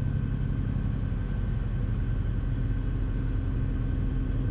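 Piper PA-46 Malibu's single piston engine running at low taxi power, a steady low hum with no change in pitch.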